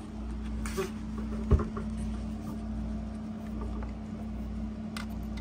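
Hex wrench clicking and tapping against the inside of a 3D printer as screws are worked loose, with one sharper knock about one and a half seconds in, over a steady low hum.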